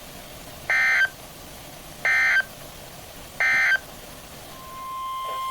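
Three short bursts of EAS/SAME digital data tones from a NOAA Weather Radio broadcast, about a second and a half apart: the end-of-message code that closes the tornado warning. Near the end a steady beep-like tone starts.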